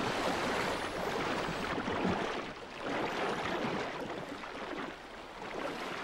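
Water splashing and rushing as a pod of dolphins races through the surface, surging and easing with brief lulls.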